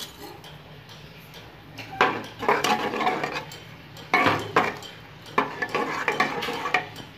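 Metal spoon stirring rice, peas and water in a pressure cooker, scraping and clinking against the pot. There are two bouts of stirring after a quieter first two seconds.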